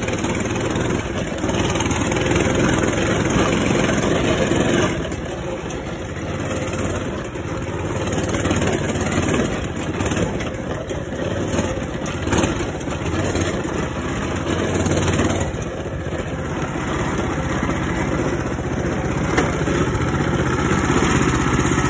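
Coleman CT200U-EX mini bike's 196cc single-cylinder four-stroke engine running while being ridden over rough dirt, the engine note rising and falling with the throttle.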